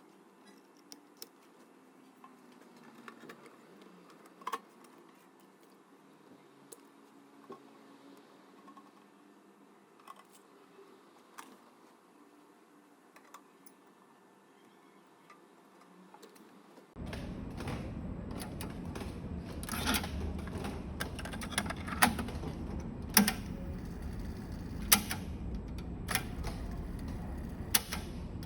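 Scattered light clicks and taps from handling a cassette deck, faint at first. About two-thirds of the way in, a steady low hiss and rumble switches on abruptly, and the clicks become louder and more frequent.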